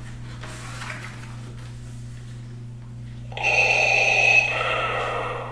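Darth Vader-style breathing heard through the worn Black Series Darth Vader helmet. One long breath starts about three seconds in and fades near the end.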